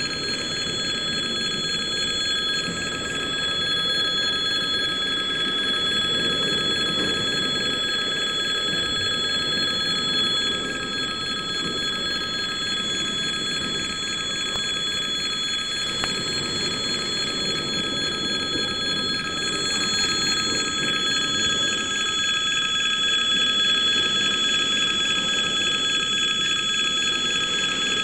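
Level-crossing warning bell ringing without a break, over the low rolling noise of a slow freight train's container wagons passing over the crossing.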